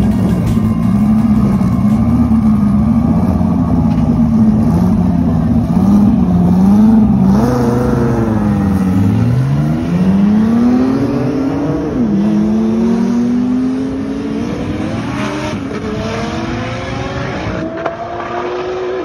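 Twin-turbo Dodge Viper and a second car revving at the start line for several seconds, then launching hard. Engine pitch climbs steeply, drops at a gear change and climbs again, fading as they pull away.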